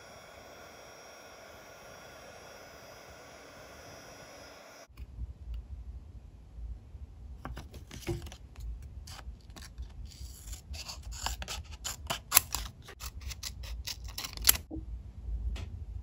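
Scissors snipping through thick paper, a dense run of crisp snips for about seven seconds, cutting out a small jar-shaped card. Before that a faint steady whirring hum from a heat embossing tool, which cuts off suddenly about five seconds in.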